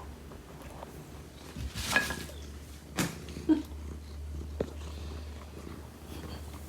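Domestic cat purring steadily, with a few short clicks and rustles.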